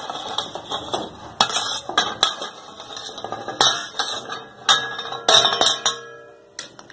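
Steel spoon scraping and clinking against a steel plate as fried besan pieces are pushed off it into a kadhai of masala water: irregular clinks and knocks, with a short metallic ring about five seconds in.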